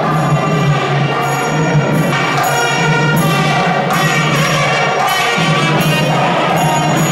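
Loud, continuous music with percussion over a steady low drone.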